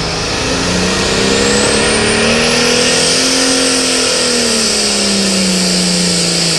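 Hot Farm class pulling tractor's turbocharged diesel engine revving hard. Its pitch climbs over the first three seconds or so, then sags a little, with a faint high whine rising early on.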